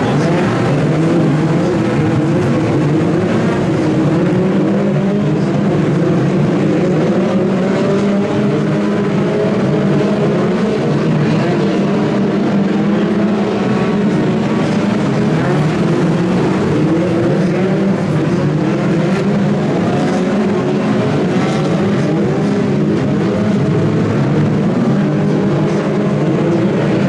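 A pack of BriSCA F2 stock cars racing, several engines running at once, their notes overlapping and rising and falling as the drivers rev up and lift off around the oval.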